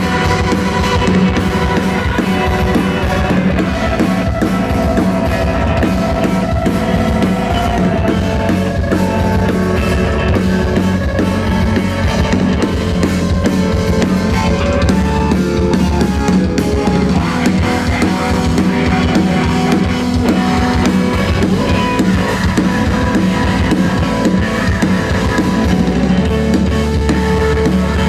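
Live rock band playing loud, with drum kit, bass drum and guitar in a dense, unbroken wall of sound, heard from among the crowd.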